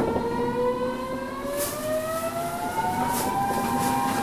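Kyoto Municipal Subway 50 series electric train pulling away from a station: its traction motors whine in several tones that rise steadily together as it accelerates, levelling off near the end, over the low rumble of the running car.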